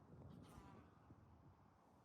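Near silence: faint low background noise.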